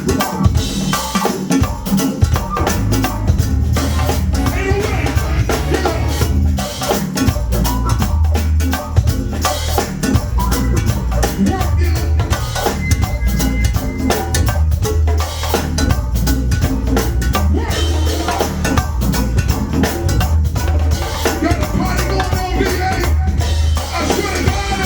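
Go-go band playing: a dense, steady drum kit and percussion groove over a heavy bass line.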